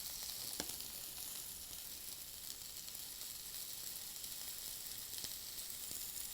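Chopped onion sizzling in olive oil in a hot skillet: a steady frying hiss with faint crackles.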